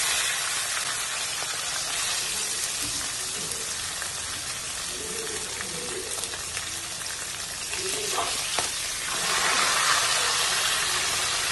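Hilsa fish heads sizzling as they fry in hot oil in a kadai, turned now and then with a metal spatula. The sizzling grows louder about nine seconds in.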